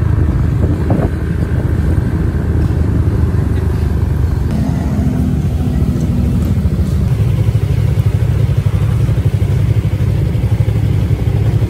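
Motorcycle engines running close by, a steady low drone with a fast pulsing beat.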